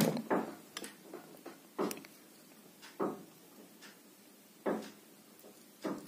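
Handling noise: a few short, sharp clicks and taps, about five in six seconds, as hands work an insulating sleeve onto a wire joint on a ceiling fan's stator coil.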